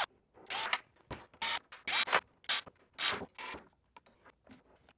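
Short, irregular metal clicks and clacks, about a dozen over four seconds, as the steel foot plate and hex screws of a Viking Arm handheld jack are handled and fitted to the tool.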